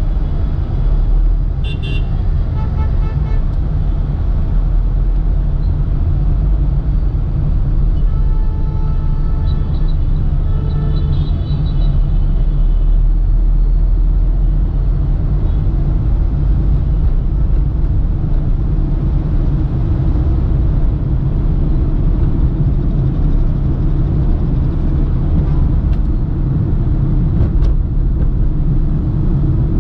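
Busy city road traffic heard from a moving vehicle: a loud, steady low rumble of engines and road noise. Vehicle horns toot several times near the start and again about a third of the way through.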